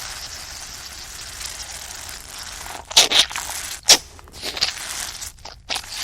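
Gore sound effects of blood squirting and splattering: a spraying hiss that fades away, then two sharp wet splats about a second apart, followed by several smaller splats.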